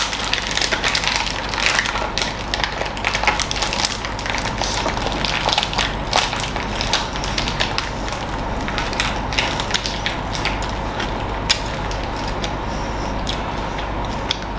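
Close-up crunching and chewing of crispy bánh xèo wrapped in fresh lettuce and herbs: many small crackles, densest in the first half, thinning out later.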